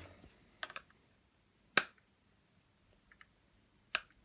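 Hard plastic vacuum canister parts clicking and knocking as they are handled and fitted together: a few separate sharp clicks, the loudest just under two seconds in and another near the end.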